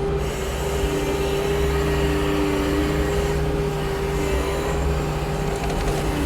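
New Holland L318 skid steer's diesel engine running steadily, with a strong steady whine over the drone and a second, lower tone that comes and goes.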